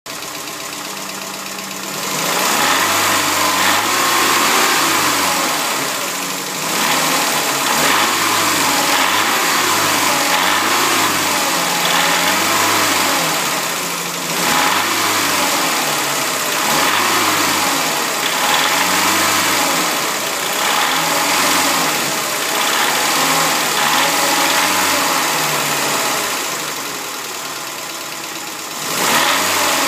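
VAZ 2106 inline-four petrol engine idling, then revved again and again from about two seconds in, its pitch rising and falling roughly every second and a half. It settles back to idle near the end, then revs once more. Under the revs at 2500–3500 rpm there is an engine knock that the owner hears only when blipping the throttle or holding about 3000 rpm.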